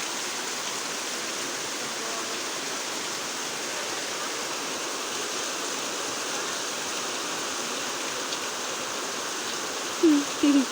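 Heavy rain falling in a steady, even hiss. Near the end come two short, loud vocal calls.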